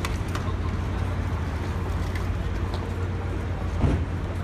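Steady low rumble of a docked passenger ferry's engine, under the light clicks and rattles of bicycles and the murmur of a disembarking crowd, with one thump about four seconds in.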